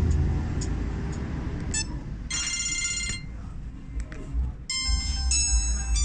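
Samsung SGH-C276L mobile phone playing ringtone previews through its small speaker as the ringtone list is scrolled. A short chiming electronic tune sounds about two seconds in and cuts off after about a second, then another electronic melody starts near the end.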